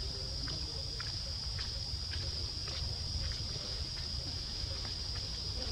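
A steady high-pitched insect drone, most likely cicadas or crickets, holds one pitch throughout over a low rumble, with scattered faint ticks.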